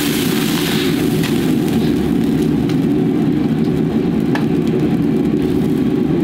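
Commercial gas wok burner running with a loud, steady low rush under a hot wok. A sizzle of liquid in the wok fades out about a second in, and the ladle ticks lightly against the wok a few times.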